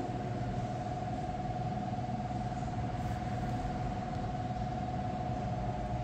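Steady room hum with a constant high-pitched whine over it, no distinct events: room tone.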